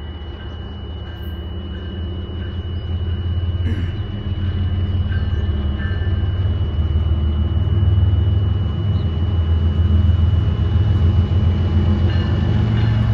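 CSX diesel freight locomotive approaching, its low engine rumble growing steadily louder as it nears.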